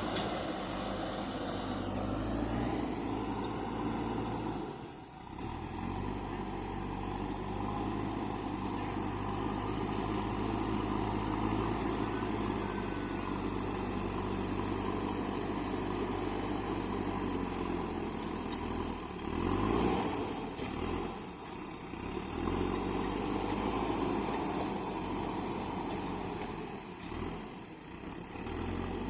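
Diesel engine of a JCB 3DX backhoe loader running steadily while it works, with its revs rising and falling. The sound dips briefly about five seconds in and swells again near twenty seconds.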